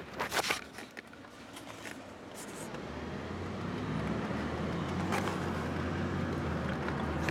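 Car engine and road noise heard from inside the cabin, a low steady hum that grows louder from about three seconds in as the car picks up speed. Near the start there are a few sharp clicks and rustles from handling the camera and a plastic food tub.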